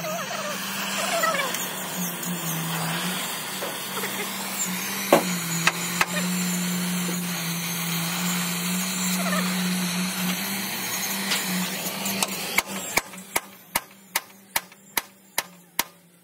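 A steady machine hum with a hiss over it, then, near the end, a run of about ten sharp, evenly spaced metal knocks, roughly two or three a second.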